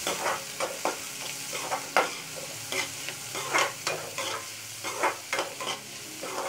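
Chopped onions frying in hot oil in a kadai, stirred briskly with a slotted metal spatula: a steady sizzle broken by irregular scraping strokes of the spatula on the pan, about two or three a second.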